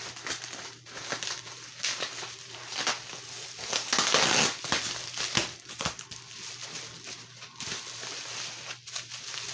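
Plastic bubble wrap crinkling and crackling as it is handled and unwrapped by hand, in a run of irregular rustles that are loudest about four seconds in.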